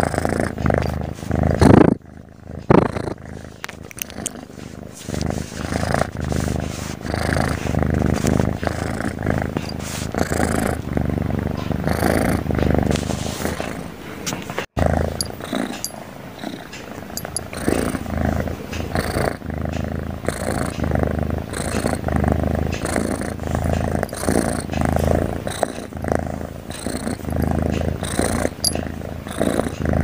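Tabby kitten purring loudly, a noisy, rough purr that swells and fades with each breath, like snoring. Two brief knocks about two seconds in.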